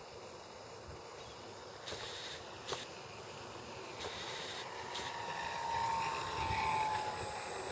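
RC model airplane's motor whining as it flies past low, the whine swelling and dropping slightly in pitch in the second half. A few short clicks come before it.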